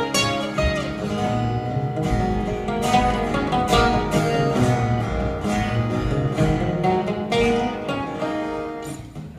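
Acoustic guitar played live, a run of picked and strummed notes that gets quieter near the end.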